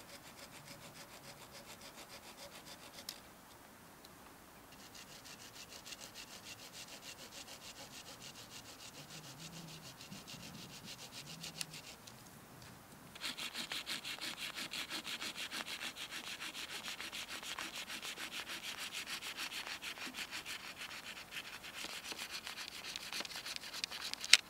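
Folding hand saw cutting through a branch in steady back-and-forth strokes. It comes in three bouts with short pauses between them, and the last bout, from about halfway through, is the loudest.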